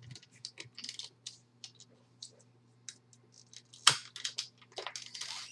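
A corkscrew working the cork out of a beer bottle: a run of small clicks, scrapes and squeaks from the screw and the cork, with a sharper click about four seconds in.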